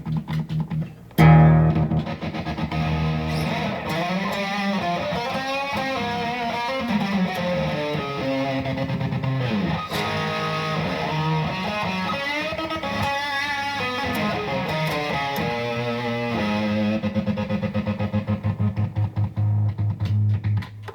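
Distorted electric guitar played through a killswitch. Near the start and again over the last few seconds the signal is chopped rapidly on and off into a stutter, with a riff played in between.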